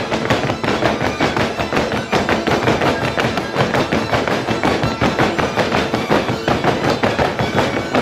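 Many boots stamping fast and hard in an Oaș men's folk dance, a dense run of thuds with no pause, with folk music faintly underneath.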